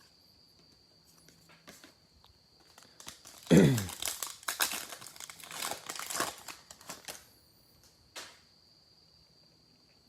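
Foil trading-card pack wrapper being torn open and crinkled: a sharp rip about three seconds in, then some four seconds of crinkling and tearing, and one short click a little later.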